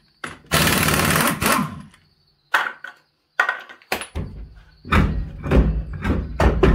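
Impact wrench hammering a lug nut off for about a second, then two short bursts. Low thuds and scuffing follow as the truck's wheel and tire are worked off the hub.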